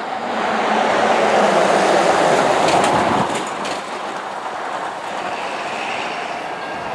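BNSF freight train cars rolling past on the rails, loudest for a few seconds, then settling to a steady, lower noise of wheels on track.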